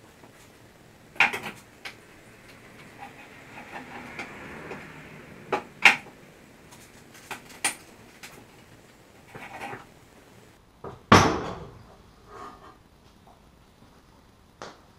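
A steel pry bar levering against a welded-in engine crossmember: scraping and scattered metal clanks. The loudest is a sharp bang with a ringing tail about eleven seconds in, as one side of the remaining weld breaks free.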